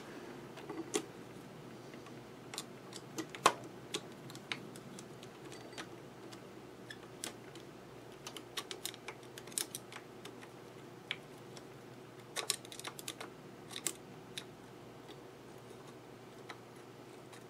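Scattered small metal clicks and taps, some in quick clusters, as a screwdriver turns the mounting screw and the bobbin winder is fitted against a Singer 66 sewing machine, over a faint steady hum.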